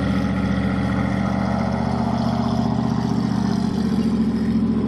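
DJI Phantom 3 quadcopter hovering in place, its propellers giving a steady, even hum.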